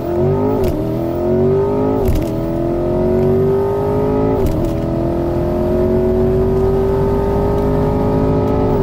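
Twin-turbocharged C8 Corvette's LT2 V8 at full throttle, heard from inside the cabin. It accelerates hard through the gears of its dual-clutch transmission: the pitch climbs, then drops sharply at each of three quick upshifts with a brief sharp sound. It then pulls through a long final gear until the throttle is lifted near the end.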